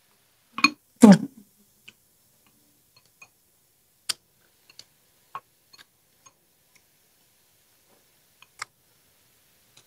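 Close-miked eating sounds: a loud bite and chew about a second in, then scattered single clicks of chopsticks on a glass rice bowl and mouth sounds, with quiet gaps between.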